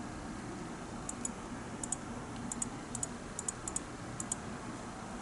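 Computer mouse button clicking: about seven quick pairs of sharp clicks over roughly three seconds, over a steady low room hum.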